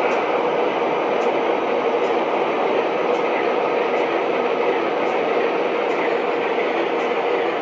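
Steady diesel idle from the onboard sound systems of O gauge model diesel locomotives, with faint high clicks about once a second.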